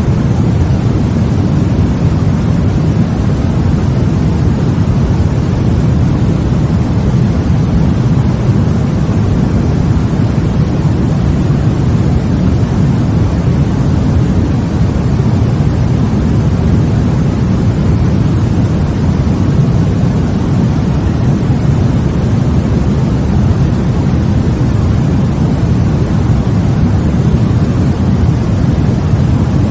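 Continuous sleep-aid white noise, heavy at the low end, so it sounds like a deep, even rumble with a softer hiss above it that never changes.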